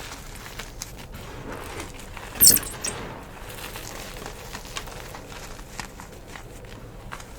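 Gym chalk being crushed: a run of small crumbling crackles, with one loud, sharp crunch about two and a half seconds in and a few lighter clicks after it.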